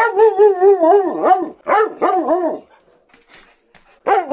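Husky "talking": long, wavering, yodel-like howling and grumbling at its owner, demanding its late dinner. One long warbling outburst breaks into a few parts and stops, and after a short pause another begins near the end.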